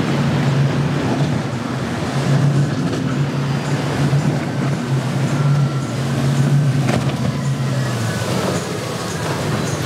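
Twin Yamaha 300 outboard motors running steadily at speed with a low drone, over the rushing hiss of spray off the hull and wind.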